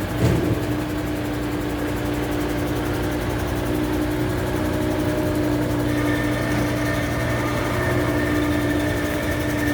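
Pothole-patching machine running steadily, its engine humming under a constant rush of compressed air blowing into the potholes. A short knock sounds just after the start, and a higher steady whine joins about six seconds in.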